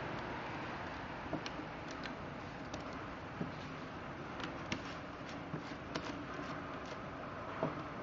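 Aluminium foil tape being pressed and smoothed into a corner by hand: faint scattered clicks and crinkles over a steady low hiss.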